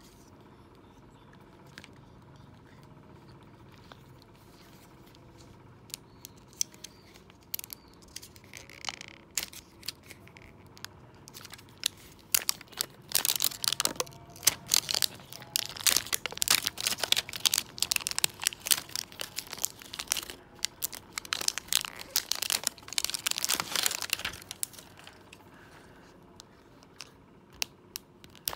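Clear plastic wrapper being peeled and torn off a toy capsule ball by hand, crinkling and crackling. It starts quiet with a few scattered crackles, turns dense for about twelve seconds in the middle, then thins to occasional crackles near the end.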